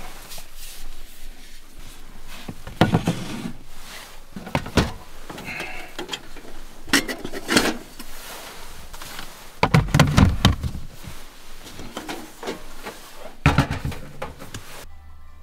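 Camping gear being handled in a plastic storage box: irregular knocks, clunks and rustling as items are lifted out and a cassette stove in its hard carry case is set down on the box lid. The handling noise cuts off shortly before the end.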